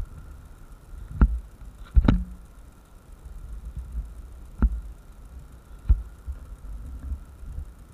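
Handling noise from motorcycle gloves being pulled on right by a head-mounted camera: four sharp knocks spread over several seconds, the second the loudest, over a low rumble.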